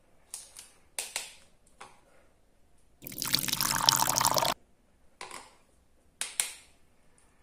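Liquid pouring from a tipped toy pot onto a plastic plate for about a second and a half, starting about three seconds in. Short clicks and taps of plastic toy kitchen pieces come before and after it.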